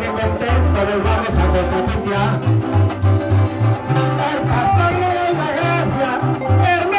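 Llanero joropo band accompanying a contrapunteo: plucked strings over a steady bass line and maracas, with a man singing into a microphone.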